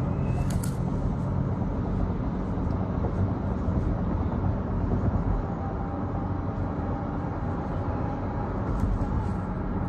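Steady road and engine noise of a moving car, heard from inside the cabin, with a brief click about half a second in and another near the end.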